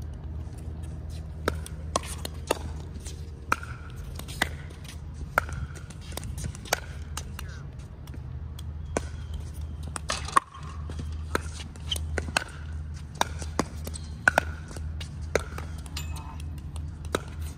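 Pickleball paddles striking a plastic pickleball and the ball bouncing on a hard court: sharp pops roughly once a second, sometimes two in quick succession, over a steady low rumble.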